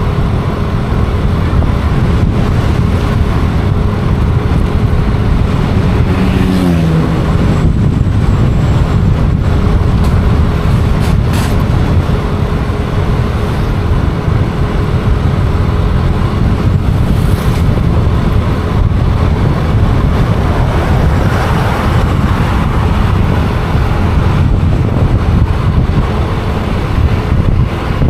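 Street traffic: vehicle engines running and passing, with a steady low rumble. About a quarter of the way in, one engine's pitch drops briefly as it slows.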